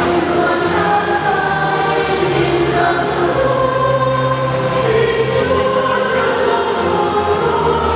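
Church choir singing a hymn with long held notes over a sustained low bass line.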